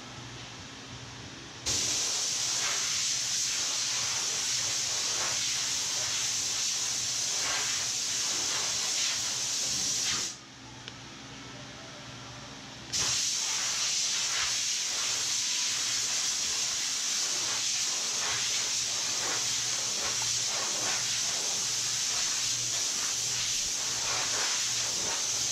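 A loud, steady hiss that starts abruptly about two seconds in, cuts out for about two and a half seconds around the ten-second mark, then starts again just as suddenly.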